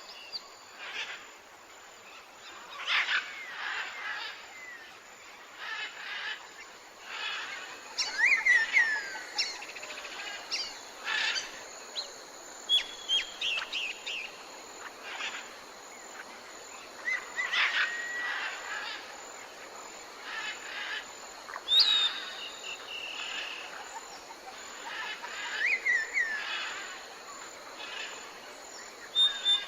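Jungle ambience: many different birds calling and chirping, some in quick sliding notes, over a steady background hiss of insects.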